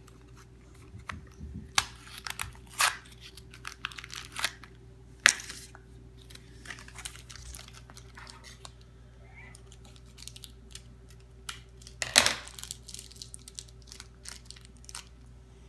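Crinkling and tearing of a small plastic blind-bag wrapper being pulled open by hand: an irregular run of short, sharp rustles and rips, the loudest about five seconds in and again about twelve seconds in.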